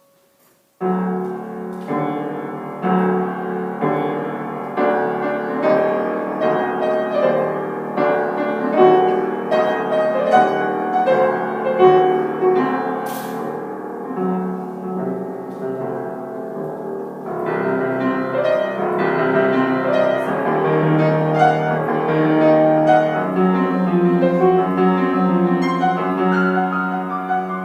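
Solo piano playing a classical piece from a piano cycle, starting suddenly about a second in with repeated struck chords over a low repeated note. A single sharp click sounds about halfway through.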